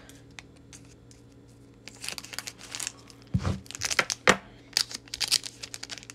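A Pokémon card booster pack's wrapper being handled, crinkled and torn open, in short crackly rustles that start about two seconds in, with a couple of low knocks in the middle.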